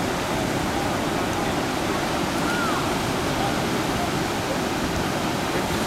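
Steady rushing wash of ocean surf on a beach.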